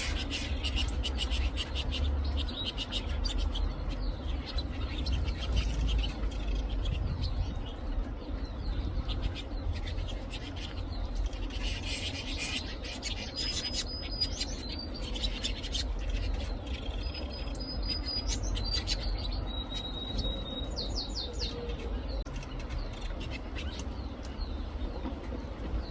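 Young lizard canaries chirping and calling, with several short held whistled notes in the middle of the stretch, over a steady low rumble.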